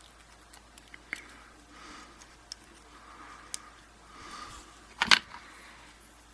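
Small metal clicks and taps from working a shim into a Yale 850 euro cylinder lock, with one sharp, louder clack about five seconds in.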